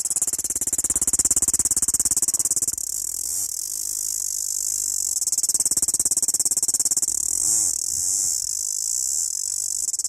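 A cicada singing its mating call: a loud, high-pitched buzz made of very fast pulses. It swells louder twice, about a second in and again around the middle.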